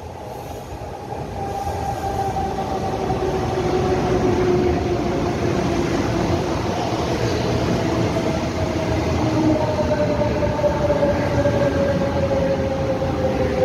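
Taiwan Railway electric multiple-unit commuter train pulling into the platform. Its rumble grows louder over the first few seconds and then holds steady as the cars run past. A whine slowly falls in pitch throughout as the train slows.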